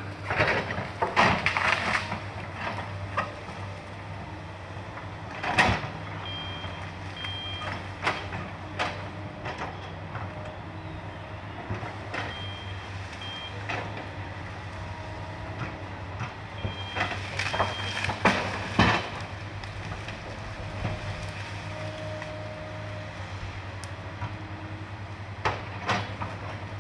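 A Sany hydraulic excavator's diesel engine running steadily at work in brush and trees. Sharp cracks and knocks come at intervals, loudest about one and two seconds in, at about six seconds and at about nineteen seconds, as it breaks through the vegetation.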